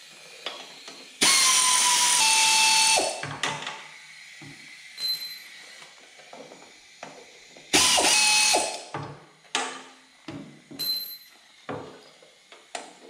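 Pneumatic air ratchet spinning cylinder head bolts out of a lawn tractor engine: a burst of about two seconds, a short blip, then a second burst of about a second, each a steady whirr and hiss of air with a whine that drops a little in pitch. Small clinks of bolts and socket fall between the bursts.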